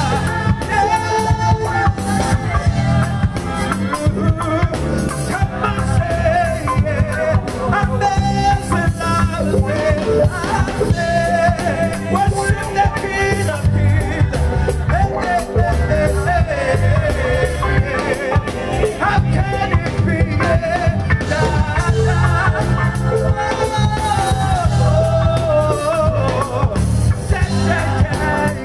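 Live band playing an upbeat song with a steady beat: drum kit, bass guitar, electric lead guitar and keyboard, with voices singing the melody.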